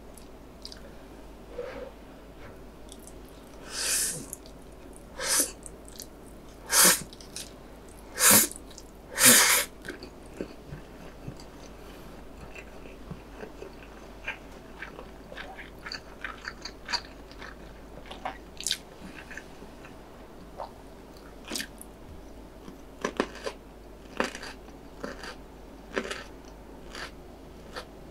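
Five long, loud slurps of Buldak stir-fried ramen noodles between about four and ten seconds in, then close-miked chewing with many small wet clicks.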